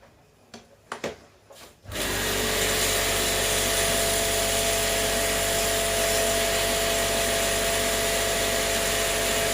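A few light clicks, then an electric motor-driven tool switched on about two seconds in, running steadily with a hissing rush and a steady whine.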